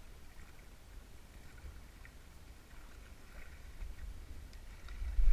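Wind buffeting the microphone as a steady low rumble, with a single loud low thump near the end.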